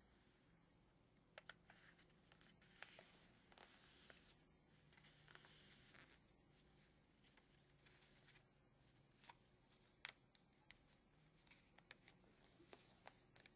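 Faint rustling and creasing of a sheet of paper being folded by hand, with soft swishes and a few sharp little clicks as the paper is pressed and handled.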